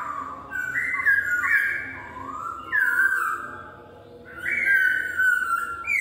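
Masked laughingthrush (poksay hongkong) singing loud whistled phrases: notes that step up and down in pitch, mixed with long downward slurs, with a quieter lull about two-thirds of the way through before the next phrase begins.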